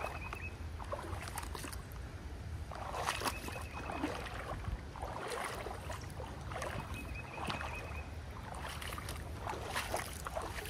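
Feet wading through shallow creek water, splashing and sloshing in irregular steps every second or two.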